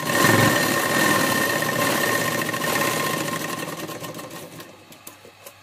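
Electric sewing machine running steadily as it stitches a seam joining two fabric panels. It is loud at first, then gradually slows and fades over the second half.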